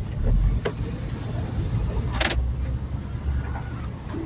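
Low rumble of a car heard from inside the cabin as it moves off, with a few light knocks and a short hiss about two seconds in.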